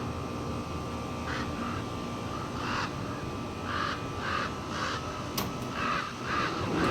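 A raven giving short, harsh croaking calls over and over, in quick runs of two to four. These are the agitated alarm calls of a raven whose nest is close by.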